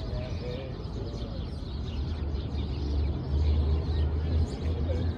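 Park ambience: small birds chirping faintly over a steady low city hum, which grows louder in the second half.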